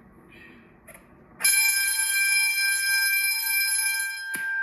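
Fire alarm bell starting suddenly about a second and a half in and ringing steadily and loudly, with a knock near the end as the higher tones drop away.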